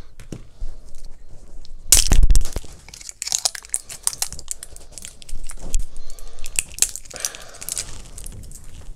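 Plastic packaging crinkling and crackling as batteries are unpacked and handled, with small clicks throughout and a louder rustle about two seconds in.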